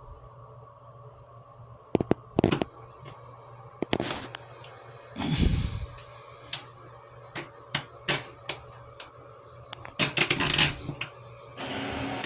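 Irregular sharp clicks and taps, with a dull thump about five seconds in, over a faint steady hum.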